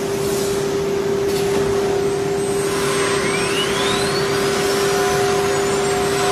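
CNC router's 9 kW air-cooled spindle running at about 24,000 RPM while it cuts a panel, a steady high whine over a constant rushing noise of cutting and suction. About halfway, a higher whistle glides steadily upward in pitch.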